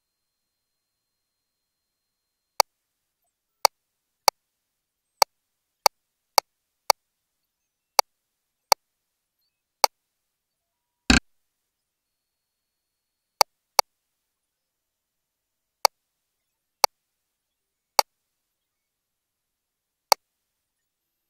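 A string of about seventeen short, sharp clicks at uneven intervals, with silence between them; one about halfway through is a little longer and heavier. These are controls being pressed while operating a GE Voluson E10 ultrasound system.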